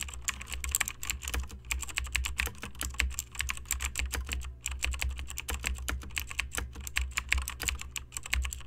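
Typing on a computer keyboard: a rapid run of keystrokes with a brief pause about halfway through, over a steady low hum.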